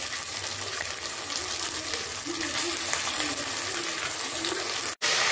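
Oil sizzling steadily in an aluminium pot with fried onions, bay leaves and whole spices cooking in it. The sound cuts out for a split second near the end.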